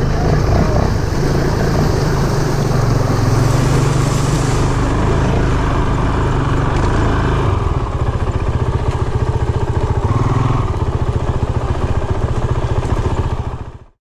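Honda CRF450RL dirt bike's single-cylinder four-stroke engine running as it rides through a shallow rocky creek, then along a gravel road. The engine sound changes about halfway through and fades out near the end.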